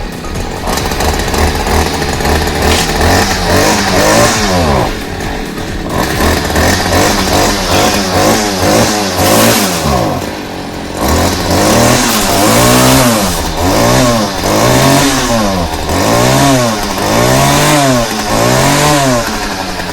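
Stihl chainsaw's two-stroke engine running, then revved over and over in quick throttle blips about once a second, each rising and falling in pitch. The owner notes a little bit of a bog in it.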